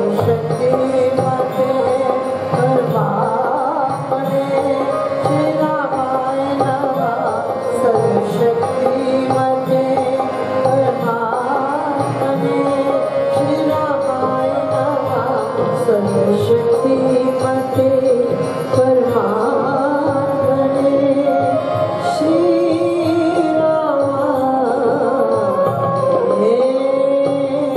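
Harmonium playing held chords and a slow melody while a woman sings a drawn-out devotional tune over it, without clear words.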